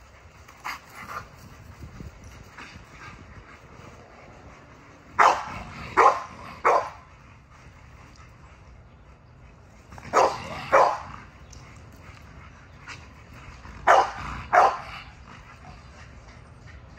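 A dog barking in short groups: three barks about five seconds in, two more around ten seconds, and two around fourteen seconds.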